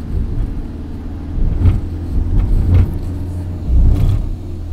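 Road noise heard from inside a moving vehicle on a wet, flooded road: a steady low rumble of engine and tyres, with three louder swells about one and a half, two and a half and four seconds in.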